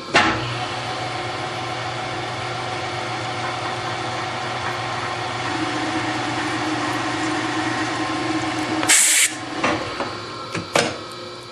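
Hardinge lathe spindle starting up and running steadily while a spotting drill chamfers the end of a small aluminum insert held in the collet, a slightly stronger steady tone joining about halfway through as the cut goes on. About a second before the end comes a short loud hiss, then a couple of sharp clicks.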